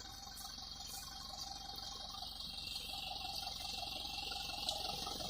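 Tractor engine running at a distance, faint and slowly growing louder.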